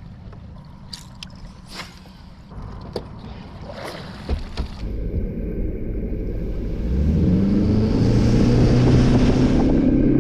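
A few light knocks, then about four seconds in a boat's outboard motor comes in with a low rumble. Near seven seconds it throttles up, its pitch rising and a steady hiss building as the boat gets under way.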